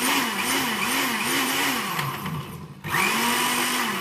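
Countertop jug blender blending a smoothie of chopped fruit and ice in two runs. Through the first run its motor pitch rises and dips about twice a second. It stops briefly about three seconds in, then spins up again at a steady pitch and winds down at the end.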